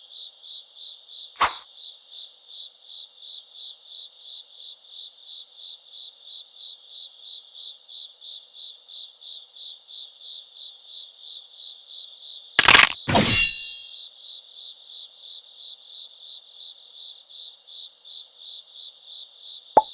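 Crickets chirping steadily, about three chirps a second, as a night-time sound effect. One sharp click sounds about a second and a half in, and two loud sharp cracks come close together around thirteen seconds in.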